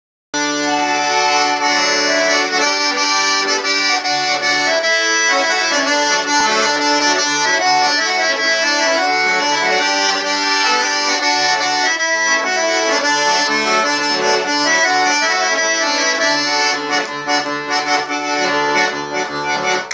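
Weltmeister piano accordion playing the instrumental introduction to a Bulgarian folk song: a melody over a rhythmic bass accompaniment, starting a moment in.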